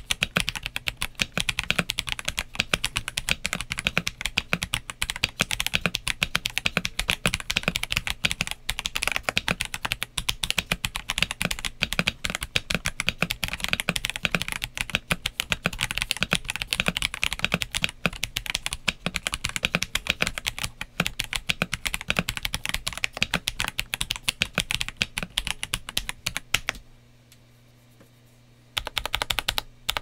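Kzzi K75 Pro mechanical keyboard with stock Kzzi Eternal tactile switches and PBT keycaps being typed on fast and continuously. The typing stops for about two seconds near the end, then starts again.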